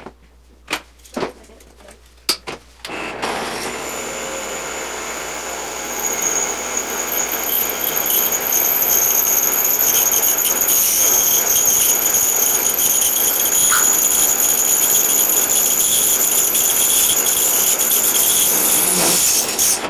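Handheld power tool running continuously with a steady high whine. It starts after a few clicks about three seconds in, grows louder around six seconds, and cuts off just before the end.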